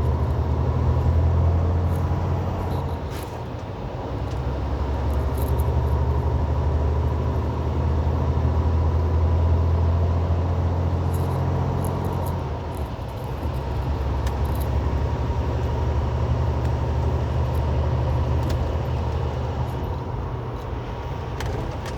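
Semi truck's diesel engine pulling steadily uphill, heard from inside the cab as a loud low drone; it eases briefly about four seconds in and changes note about twelve seconds in.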